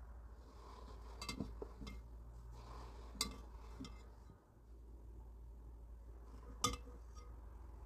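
A spatula clinking against a glass mixing bowl a few times while egg-white meringue and coconut are folded together, the sharpest clink near the end, over a low steady hum.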